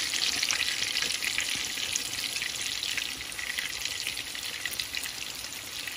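A thin plăcintă sizzling in a frying pan, a steady hiss with small crackles throughout, as it fries on its second side.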